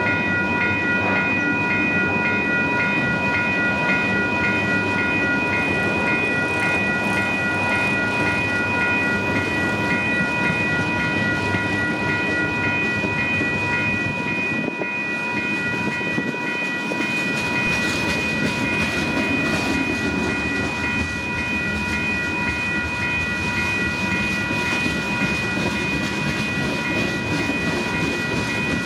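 Union Pacific mixed freight train rolling past, its freight cars' wheels clicking and rumbling over the rails. A steady high-pitched ringing tone runs under the rumble.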